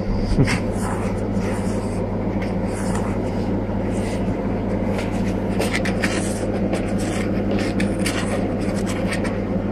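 Razor blade scraping along the surface of mirror glass as it is drawn around a template to mark the cutting outline, in short, irregular scratches. A steady low electrical hum runs underneath.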